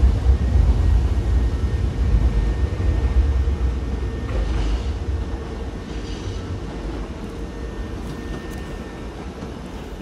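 Hankyu electric commuter train pulling away from the platform, its low rumble of wheels and running gear fading steadily as it leaves.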